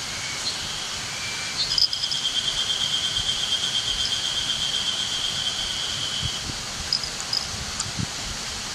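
Outdoor woodland ambience with a steady hiss, and a long, even, high-pitched trill that starts about two seconds in and lasts about four and a half seconds. A few short high chirps come before and after it.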